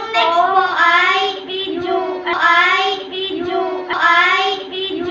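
A child singing a tune in a high voice, with long held notes that waver in pitch and swell louder about every second and a half.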